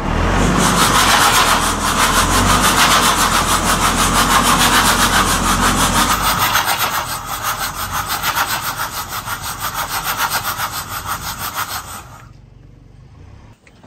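A telehandler's diesel engine working under load as it rocks the truck back, with a fast, even rasping rhythm as the truck's long-seized engine is dragged round in gear. The sound drops away sharply about twelve seconds in.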